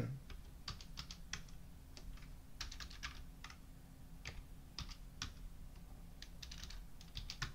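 Typing on a computer keyboard: faint, irregular keystrokes, some in quick runs of several clicks, as values are entered into a program's parameter fields.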